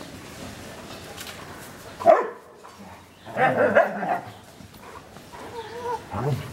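Dobermans barking and yipping as they play-fight. There is one sharp bark about two seconds in, then a flurry of barks and yips a second later, and fainter whining calls near the end.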